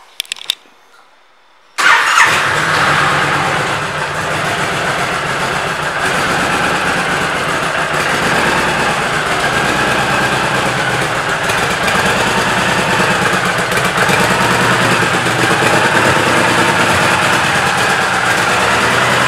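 Honda Fury's 1312 cc V-twin engine starting up about two seconds in, then idling steadily.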